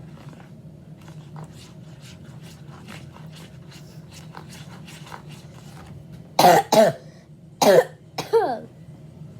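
Slime being stirred in a bowl, faint sticky clicks in quick succession. About six seconds in, a girl coughs four times, in two pairs.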